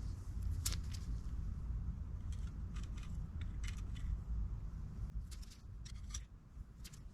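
Scattered small metallic clicks and light scrapes as tools and parts are handled on a workbench, over a low steady rumble.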